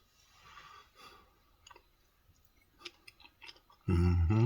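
A person eating: small mouth clicks and breathing while chewing, then a short, loud hummed "mmm" of enjoyment near the end.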